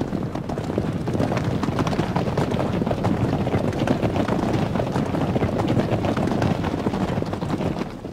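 Horses galloping: many hoofbeats running together, growing louder about a second in and fading near the end.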